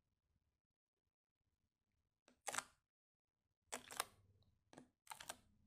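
Fingertips pressing into glossy slime on a glass plate, making short crackly popping sounds in four brief bursts over the second half.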